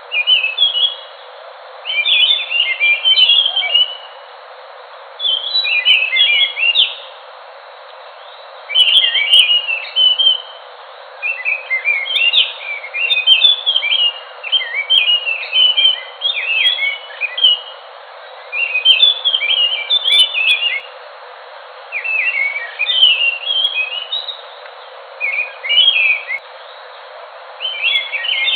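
Ground thrush (anis, Geokichla) singing: phrases of rapid, jumbled high notes, each a second or several seconds long, come again every couple of seconds over a steady background hiss.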